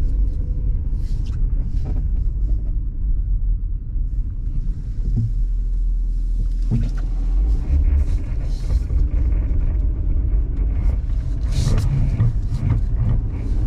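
A vehicle driving on an icy, snowy road, heard from inside the cabin: a steady low rumble of engine and tyres, with a few brief knocks or crackles.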